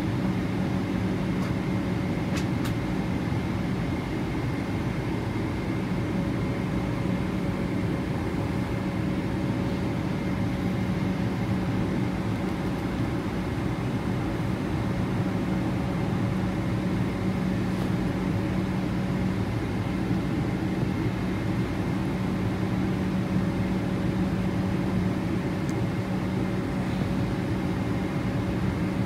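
GE90-115B engines of a Boeing 777-300ER idling as the aircraft taxis, heard inside the cabin: a steady low hum with a faint high whine over it.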